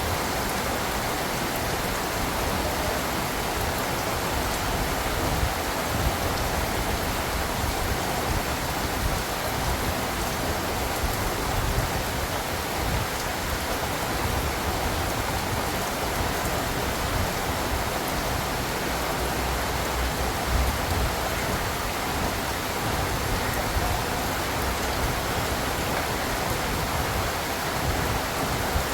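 Heavy rain falling steadily: an even, continuous hiss without let-up.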